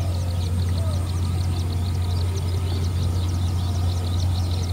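A steady low hum, with many quick high chirps of small birds scattered over it.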